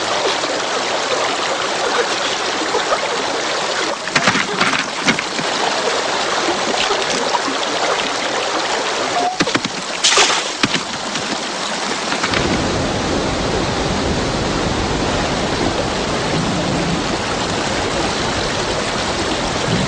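Steady rushing of running water, like a stream, with a few sharp knocks about four to five seconds in and again about ten seconds in; a deeper rumble joins in about twelve seconds in.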